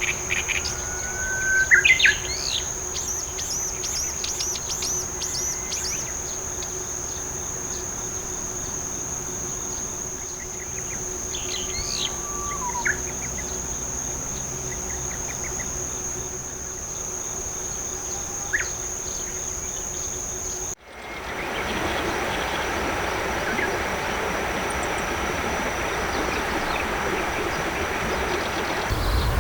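Brown-eared bulbul calling in short shrill notes and rising glides, the loudest about two seconds in, over a steady high-pitched insect trill. About two-thirds of the way through the sound cuts to a steady, hissy open-field ambience with the insect tone fainter.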